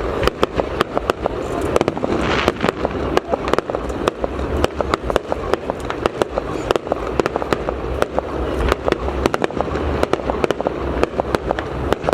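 A fireworks show in full swing: sharp bangs go off in rapid succession, several a second, over a continuous low rumble of booms.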